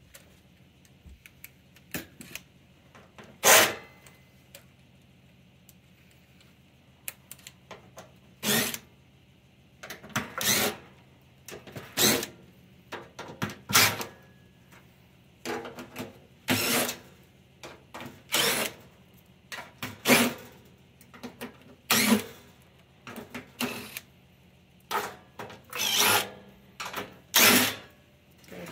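Cordless drill-driver with a nut-driver bit backing screws out of a furnace secondary heat exchanger's cover plate, in a string of short whirring bursts, the loudest about three and a half seconds in.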